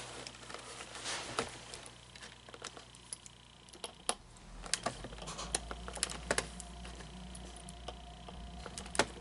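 Scattered light clicks and taps of hands handling and working on a plastic animatronic figure, with a faint low hum underneath.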